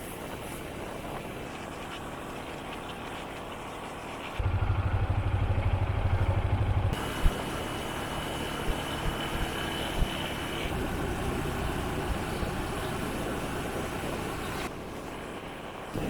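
Honda FTR223's single-cylinder engine running, heard across several abruptly changing stretches. About four seconds in, a loud low rumble comes in and stops suddenly a couple of seconds later, followed by a sharp knock.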